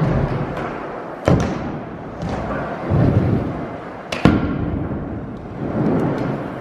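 Stunt scooter riding skatepark ramps: its hard wheels rolling on the ramp surfaces in swelling rushes, with two sharp clacks, about a second in and about four seconds in, the second as the scooter lands back on the quarter pipe.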